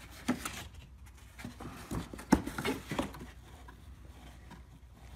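A run of about ten irregular sharp knocks and taps, handling and movement noise, stopping about three seconds in.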